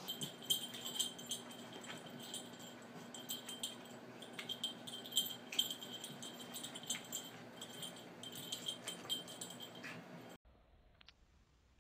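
Small bell jingling and rattling in irregular shakes as a cat plays, stopping abruptly about ten seconds in.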